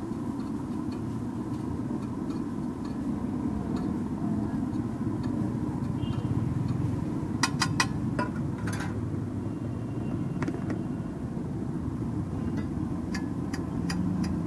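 Spatula clinking and scraping on a large flat griddle as egg bhurji is stirred and chopped. There is a cluster of sharp clinks about halfway through and a run of quick, even taps near the end, over a steady low rumble.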